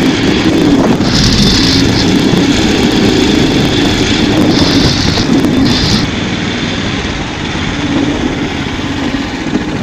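Snow Dog tracked power sled's small gasoline engine running steadily under load as it pulls across snow, easing off a little after about six seconds. Bursts of high hiss come over it twice.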